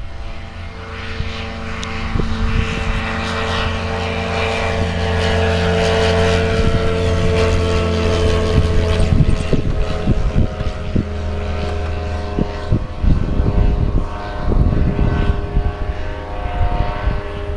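Propeller model airplane flying, its engine and propeller note rising to a peak near the middle and then easing off. Gusts of wind buffet the microphone, mostly in the second half.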